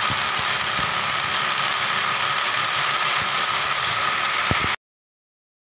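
Corded rotary hammer drill boring into a wall, a steady loud drilling noise with a high whine, which cuts off suddenly near the end.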